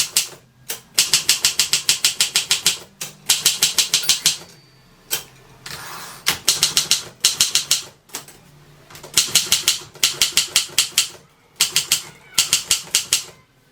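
Triumph Durabel manual typewriter being typed on: rapid type-bar strikes, about eight a second, in five runs of a second or two each with short pauses between them.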